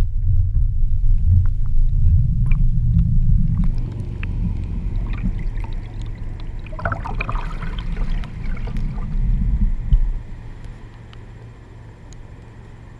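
Waterproof-housed action camera underwater: a low, muffled water rumble, then splashing and gurgling as it is lifted out through the surface, dropping suddenly about ten seconds in to a quiet hiss of open air.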